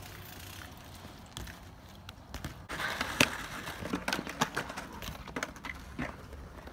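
BMX bike riding on concrete: tyres rolling, then from about three seconds in a scatter of sharp clacks and knocks as the bike lands and rolls across the skatepark surface.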